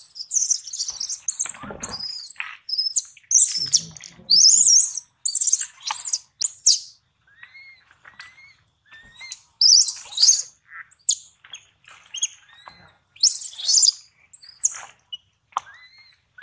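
Infant macaque screaming: many short, shrill, high-pitched squeals in quick clusters with brief pauses, the distress calls of a baby being grabbed and dragged by an adult. A couple of low thuds come in the first few seconds.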